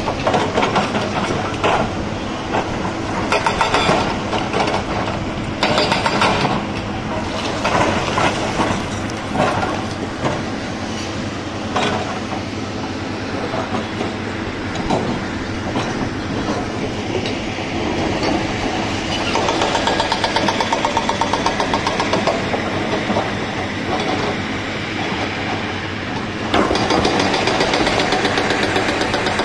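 Excavator's diesel engine running under load while stone is shifted, with rocks clattering and knocking, heaviest in the first several seconds. Near the end the engine gets louder and runs with a fast regular pulsing as the bucket works.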